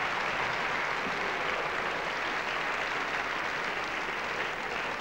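Studio audience applauding, a dense steady clapping that eases off slightly near the end.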